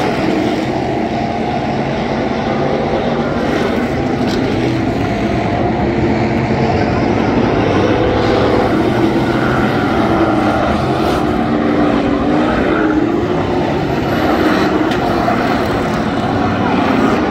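Several USRA dirt-track stock cars' V8 engines running on the track at once, a loud, steady engine drone with no break.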